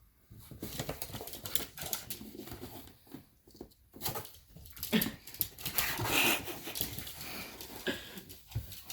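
Pets scuffling in and around a cardboard box: repeated scratching and rustling, with a short falling animal cry about halfway through and a hiss-like sound just after.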